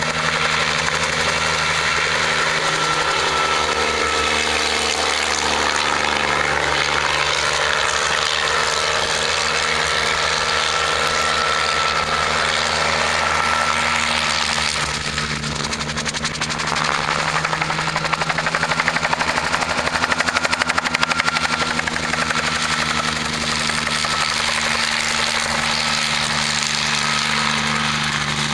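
Bell 47 G2 helicopter on a low-level spraying pass: its piston engine runs steadily under the rapid, even beat of the two-blade main rotor. The beat swells louder about two-thirds of the way through as the helicopter comes close.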